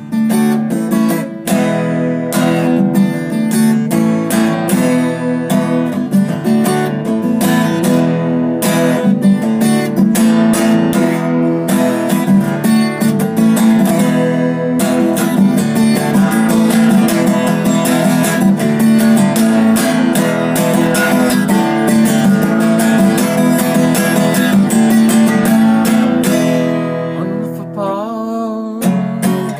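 Acoustic guitar strummed and picked in a steady, dense rhythm, an instrumental passage without singing, easing off near the end.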